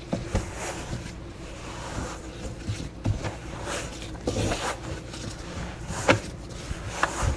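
Sticky bread dough being mixed by gloved hands in a stainless steel bowl: irregular soft squelches and thumps, with a few sharper knocks of the bowl, the loudest about six seconds in and near the end.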